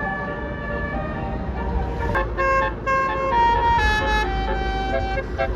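Bus telolet horn of the Basuri type, a multi-tone air horn, playing a tune of held notes that step up and down in pitch, louder from about two seconds in. A bus engine rumbles low underneath.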